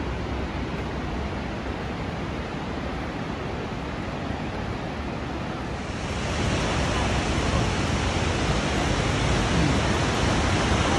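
Steady rushing of falling water from a waterfall. About six seconds in it becomes louder and brighter.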